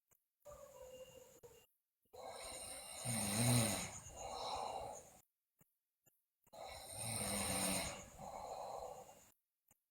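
A sleeping girl snoring loudly, two snoring breaths about four seconds apart with a softer breath before them. Abrupt dead-silent gaps break up the breaths.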